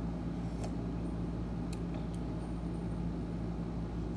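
A steady low mechanical hum, with a few faint short clicks as soup is drunk from a paper cup.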